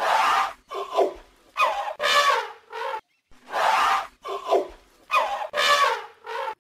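Elephant calling: a series of loud, rough calls, some with a sliding pitch. The same sequence of calls is heard twice.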